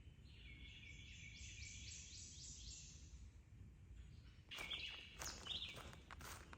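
A songbird singing a quick run of repeated high, slurred notes for about three seconds. Footsteps follow near the end, with a few more short bird chirps.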